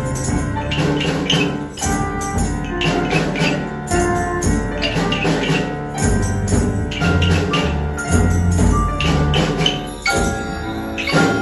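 Children's rhythm band playing: wooden rhythm sticks clicking and tambourines and bell shakers jingling in time, over a melodic pitched accompaniment.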